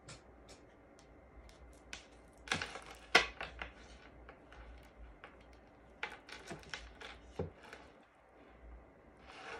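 Tarot cards being handled: soft clicks, taps and rustles of the cards sliding against each other, in two clusters a few seconds in and again past the middle.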